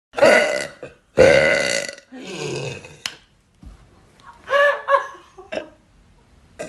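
A girl burping on demand: three long, loud belches in quick succession in the first three seconds, the third one quieter. A shorter, softer vocal sound follows about four and a half seconds in.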